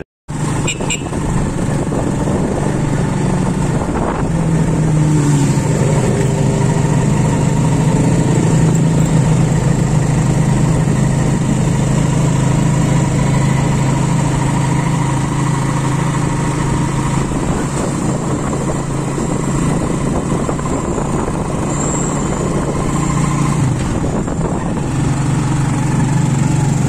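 Engine of a small open-sided passenger vehicle running steadily under way, heard from aboard with road and wind noise; the engine note drops briefly near the end and then picks up again.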